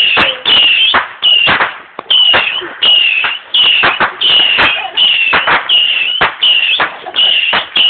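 Multi-shot firework going off in quick succession, about two shots a second. Each shot is a short, high, slightly falling whistle that ends in a sharp crack.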